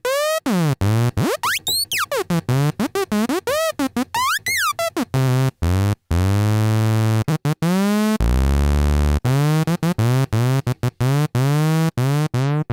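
Synth lead patch in Native Instruments Massive played in short notes, its pitch swept widely by a modulation macro so that the notes swoop steeply up and down for the first few seconds. After that come quick repeated notes at steadier pitches, with one low held note about eight seconds in.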